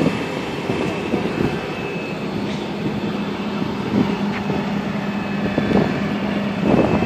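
Fire engine's engine running steadily close by, a continuous rumble with a low steady hum, broken by a few dull knocks in the second half.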